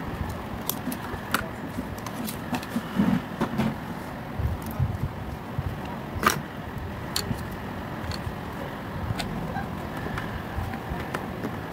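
Scattered light clicks and knocks of hands and tools handling an opened plastic toy case and its circuit board, with one sharper click a little past halfway, over a steady low background rumble.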